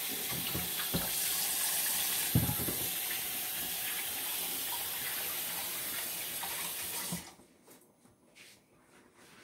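Kitchen sink faucet running steadily while hands are washed under it, with a brief knock a little over two seconds in; the water is shut off about seven seconds in.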